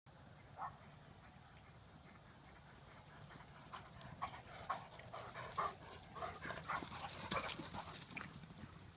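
Dogs making short whines and yips as they run along a wire fence, with quick footfalls and clicks. After one early yip the sounds grow busier from about four seconds in and are loudest just past seven seconds.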